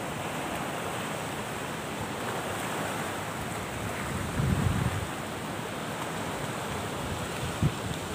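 Steady rush of wind and gentle surf on the shore, with wind buffeting the microphone. A brief low thump about halfway through and a small knock near the end.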